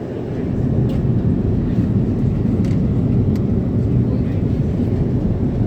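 Steady low rumble of airliner cabin noise on the approach to landing, stepping up in loudness about half a second in and then holding steady, with a few faint clicks.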